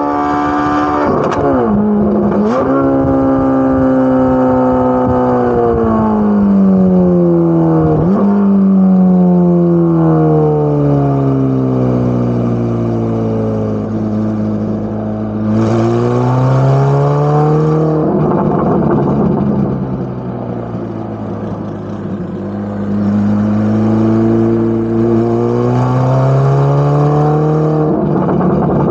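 Corvette C8 Z06's naturally aspirated flat-plane-crank V8 exhaust, its revs sliding down in a long deceleration and then climbing again under throttle, with a couple of sharp cracks about two seconds in.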